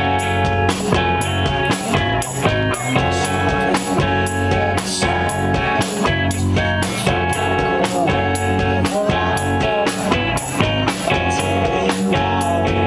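Live rock band playing an instrumental passage: electric guitar over a drum kit keeping a steady beat of about two hits a second.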